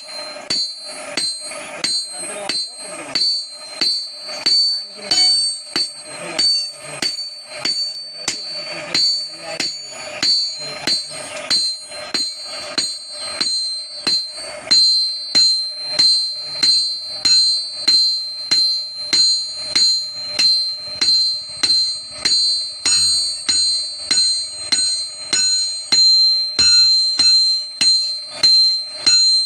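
Hand hammer beating a red-hot axe head on a round steel anvil block in a steady rhythm of nearly two blows a second, each blow with a high ring that carries on between blows. The blows get louder about halfway through.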